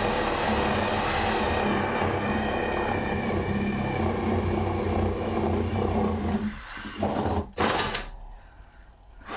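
Power drill with a spade bit, hammer action off, boring straight down through wood. It runs steadily, dips briefly, gives one more short burst and stops a little before the end.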